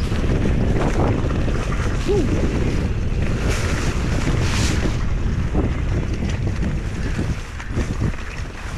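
Wind buffeting the microphone of a mountain bike descending at speed, over the rumble and knocks of the bike's tyres and frame on a rough dirt trail. It gets quieter near the end.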